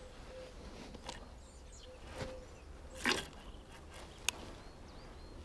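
Quiet outdoor ambience with faint, short bird chirps and a few close handling clicks and rustles; the loudest is a brief rustle about three seconds in, followed by a sharp single click about a second later.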